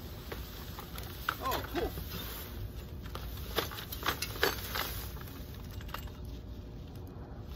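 Plastic bagging rustling and a few sharp knocks as things are shifted and pulled out of a dumpster, with a brief squeak about a second and a half in.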